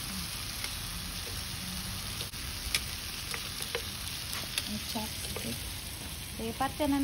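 Pork belly and sausage sizzling steadily in a round grill pan, with a few light clicks of metal tongs against the pan.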